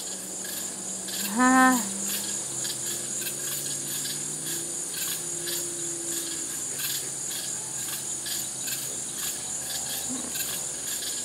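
Evening chorus of insects: a steady high-pitched chirring with a regular pulse. About a second and a half in, a short voiced sound, the loudest moment, stands out over it.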